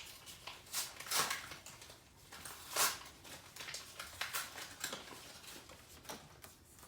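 Paper envelope of a greeting card being torn open and handled by hand: a run of short tearing and rustling sounds, the loudest nearly three seconds in.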